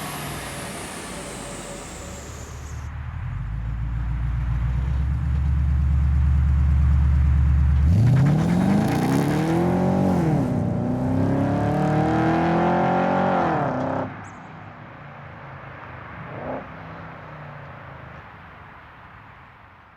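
HSV Gen-F Senator Signature's V8 through a Difilippo Big Boy exhaust with dual straight-through mufflers and an X-pipe, rumbling low, then revving hard in a take-off. The pitch climbs, drops once at a gear change, climbs again and cuts off suddenly, leaving quieter background.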